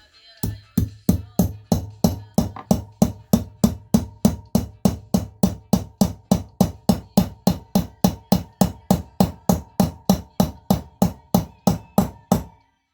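Steady hammer blows, about three a second, driving a valve guide through a small socket into the cylinder head of a VAZ classic engine, with a steady ringing tone beneath the knocks.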